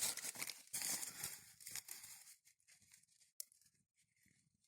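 Dry wormwood herb crumpled and rustled by hand: crackly rustling for about two seconds, then a few faint scattered clicks.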